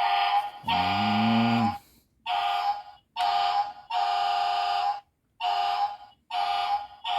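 Toy fire truck's electronic sound unit giving a buzzy beeping alarm tone in about eight separate bursts, each half a second to a second long, as its siren buttons are pressed.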